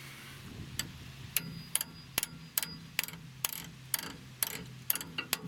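Screwdriver tip clicking against a rusty factory brake-hose retaining clip and its thin sheet-metal bracket as it is pried at: about a dozen sharp metallic clicks, two or three a second, with the clip still not coming off.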